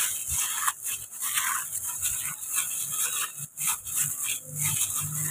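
Plastic-gloved hands mixing raw chicken pieces with seasoning in a bowl: irregular rubbing and rustling of the plastic gloves against the meat.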